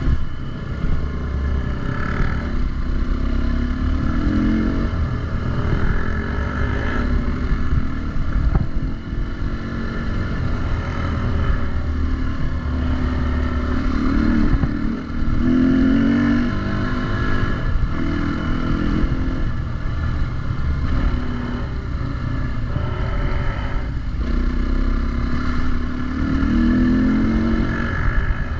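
Dirt bike engine running under way, its revs rising and falling several times over a constant low rumble.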